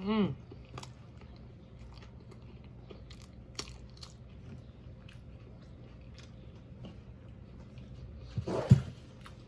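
Close-up mouth sounds of eating a fried whiting sandwich: biting and chewing with scattered small crunches and clicks. A short hummed vocal sound at the start, and another brief vocal sound with a sharp knock near the end.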